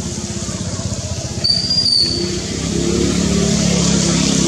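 A motor engine running, growing louder in the second half. A short high-pitched squeak sounds about a second and a half in.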